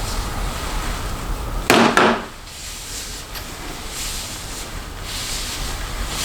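Two sharp knocks in quick succession, a little under two seconds in, over a steady low background noise that drops away after them.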